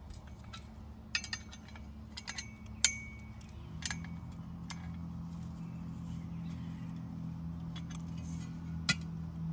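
Adjustable crescent wrench clinking against hex-head bolts and the galvanized steel post base while the bolts holding the spade plate are tightened: scattered sharp metallic clinks, several in the first four seconds and one near the end. A steady low hum comes in about four seconds in.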